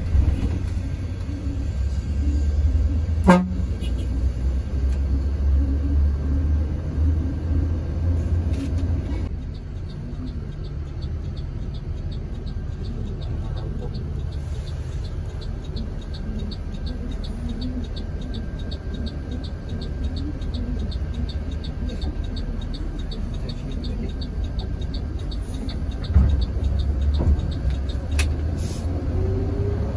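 Mercedes-Benz OH 1626 coach's six-cylinder diesel and road rumble heard from inside the cabin on the move, with a horn toot. A fast, even ticking, about three ticks a second, runs through the middle.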